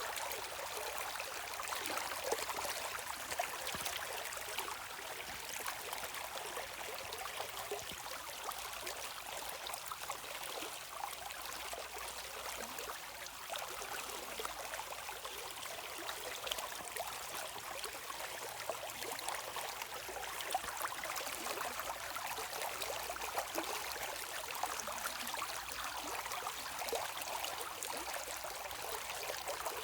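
Shallow stream running steadily, water trickling and splashing over stones with a continuous rushing hiss.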